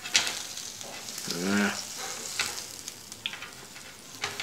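Wooden chopsticks clicking and scraping as they fumble at steamed dumplings on a metal-rimmed tray, a few sharp clicks over a steady crackling hiss. A short hummed "mm" comes about a second and a half in.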